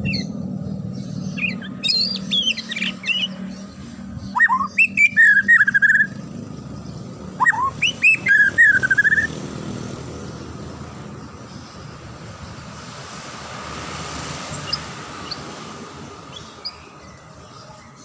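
White-rumped shama (murai batu) singing three loud phrases of rising whistles, each ending in a quick warble, over a low traffic rumble that fades away after the song.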